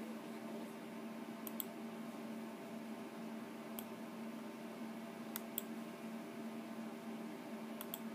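Button clicks, seven in all, most of them in quick pairs, coming every couple of seconds as a pointer steps through a TV channel menu. Under them runs a steady low electrical hum.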